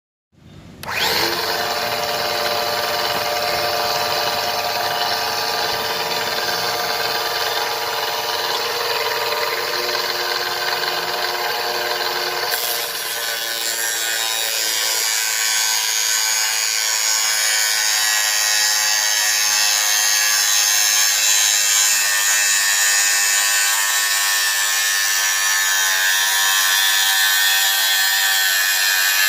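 Homemade cutting saw driven by an 895 brushed DC motor, starting up and running steadily with a whining tone. Its tone shifts about 13 seconds in, as its load changes.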